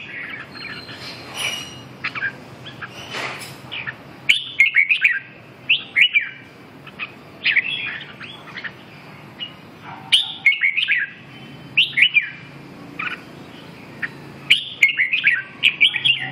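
Red-whiskered bulbul singing: short, bright chirped phrases repeated every second or two, over a faint low steady hum.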